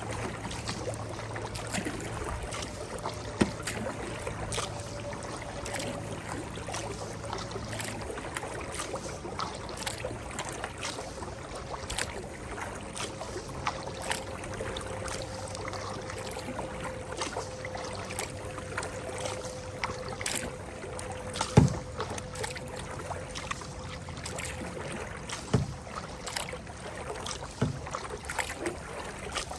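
Kayak being paddled: paddle blades dipping into the water with irregular splashes and drips, and a few louder knocks, the loudest about two-thirds of the way through.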